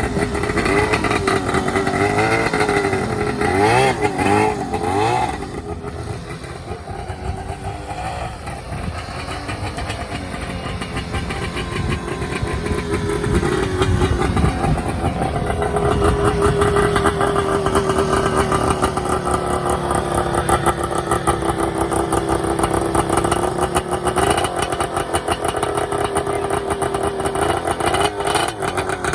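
Vintage Arctic Cat ice racer snowmobile's two-stroke engine running. It is blipped up and down a few times in the first five seconds, drops back and runs quieter for a few seconds, then builds to a steady high-revving run for the rest of the time.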